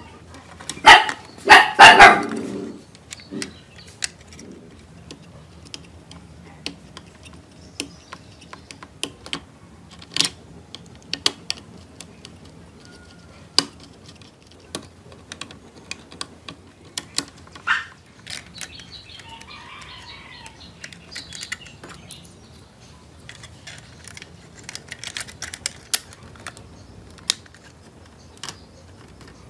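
Scattered clicks and taps of the hard plastic body and small parts of a toy remote-control car being taken apart with a small screwdriver. A louder clattering burst comes about a second in.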